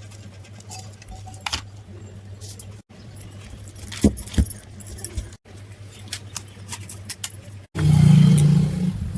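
Small metal parts and tools clinking and clicking during work on a tile cutter, over a steady low hum, with three abrupt cuts. Near the end a much louder low-pitched sound starts.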